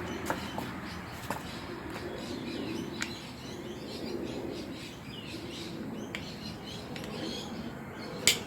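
Birds chirping over a steady outdoor background, with a few sharp clicks, the loudest near the end.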